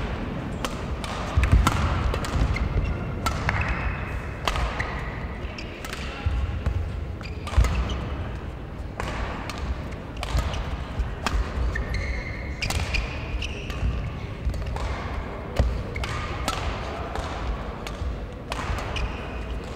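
Badminton rally: rackets striking a shuttlecock again and again at irregular intervals, with players' shoes squeaking on the court floor, echoing in a large sports hall.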